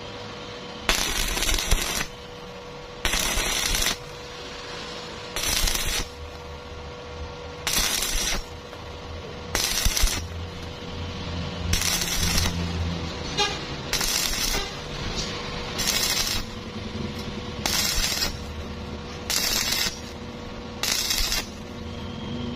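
Stick-welding arc from an E6013 2.0 mm electrode at 75 amps, crackling in short bursts of half a second to a second about every two seconds, as the arc is struck and broken over and over to lay the bead on thin angle iron in spots. A steady hum runs between the bursts.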